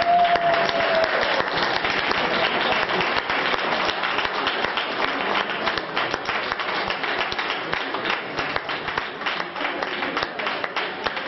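A small audience applauding: dense clapping that slowly thins out into separate claps towards the end.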